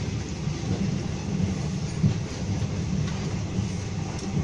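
Steady low rumble of a moving passenger train heard from inside the carriage, with a single thump about two seconds in.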